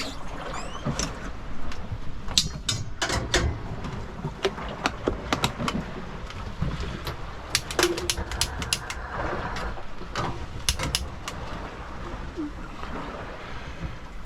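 Sailing yacht underway at sea: a steady low rumble of wind and water, with many sharp, irregular clicks and knocks scattered through it.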